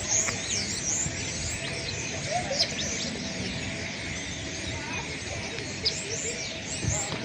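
A large flock of birds chirping, with many short high calls overlapping without a break.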